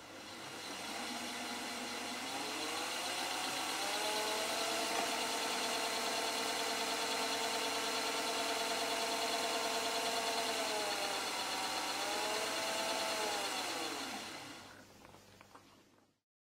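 Electric Eel Wheel 5 electric spinning wheel running, a motor whine whose pitch climbs over the first few seconds as the speed knob is turned up. It holds steady, dips and climbs again briefly, then falls and dies away near the end.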